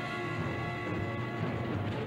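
Film score music with long held notes, over a steady low rumble.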